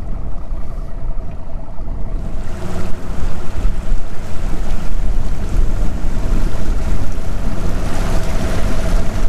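Mercury Pro XS 250 outboard motor running, on a freshly replaced powerhead being broken in, as the boat moves over choppy river water, with a steady hum over a low rumble. Water splashing and wind buffeting the microphone grow louder about two and a half seconds in.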